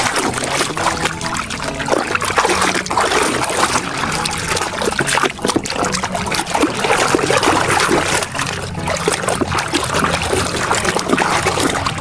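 Water splashing and trickling as a muddy toy is washed by hand in a tub of water, with irregular small splashes and drips throughout.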